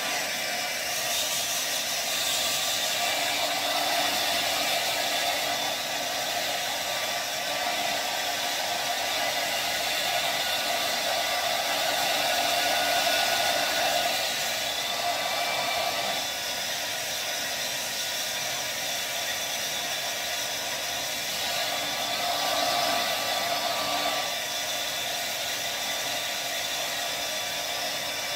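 Hand-held hair dryer blowing steadily on wet hair, with a continuous rushing air sound that swells a little now and then as it is moved around the head.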